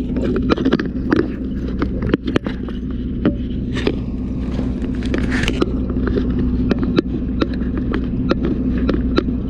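Fire engine's engine running steadily as water is sent to the hose line, with frequent sharp cracks and snaps throughout and a brief hiss about four to five seconds in.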